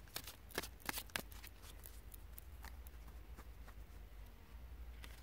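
Faint handling of tarot cards: a quick run of soft clicks and rustles in the first second, then only a few scattered ticks over a low steady rumble.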